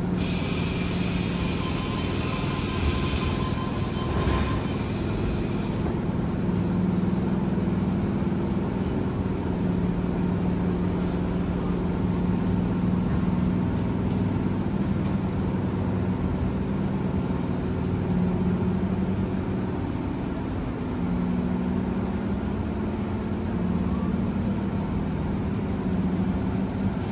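Tangara electric train departing and running, heard from inside the passenger car: the traction motors hum, and the hum steps in pitch as the train gets under way, over the steady rumble of the wheels on the rails. A hiss is heard in the first few seconds.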